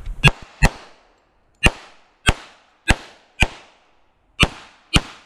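Sig Sauer 1911 MAX .45 ACP pistol firing eight shots. They come as two quick shots, a pause of about a second, four shots about half a second apart, another pause, then two more, each crack trailing off in a short echo.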